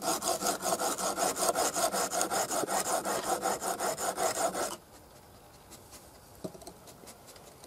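A chisel being honed on a handheld sharpening stone: quick, even back-and-forth scraping strokes, several a second, that stop abruptly about two-thirds of the way through.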